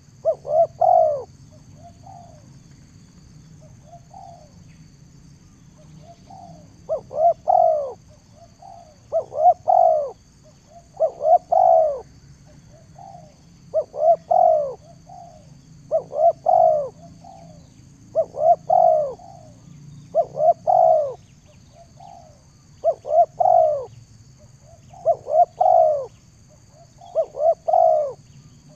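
A dove cooing over and over, each phrase a quick run of three or four rising-and-falling notes, repeated about every two seconds after a short pause near the start.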